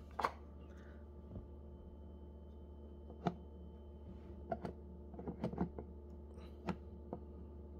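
An acrylic dice baffle being handled and shifted on the wooden rim of a backgammon board: a scatter of light clicks and knocks, one just after the start and most between about three and seven seconds in, over a faint steady hum.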